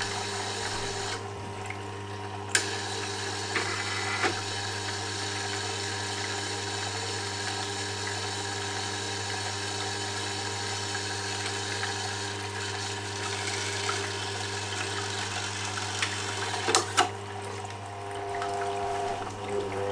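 Tormek T8 wet sharpener running with a steady low hum and hiss. A few light clicks about two and a half and four seconds in and twice near the end, as the plastic tool setter is handled against the wheel.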